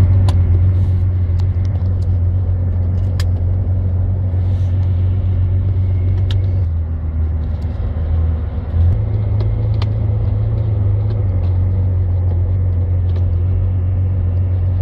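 McLaren F1's 6.1-litre BMW V12 heard from inside the cabin, running steadily at low revs with a strong low engine note. The note sags briefly and picks up again about nine seconds in, with a few light clicks over it.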